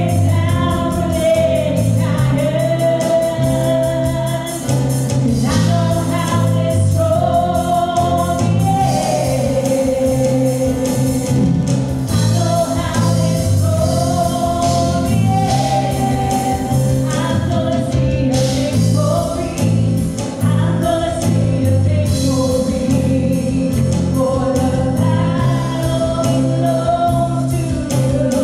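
Live contemporary worship song: a woman sings the lead into a microphone over acoustic guitar and keyboard, with a steady bass line and beat underneath.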